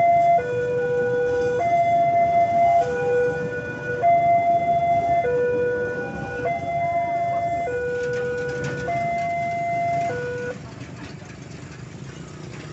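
Railway level-crossing warning alarm sounding two alternating tones, a low one and a higher one, each held about a second, over the rumble of passenger coaches rolling past. The alarm stops about ten seconds in as the crossing clears.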